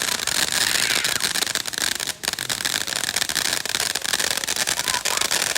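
Fireworks crackling: a dense, continuous run of rapid pops and crackles, with a brief lull about two seconds in.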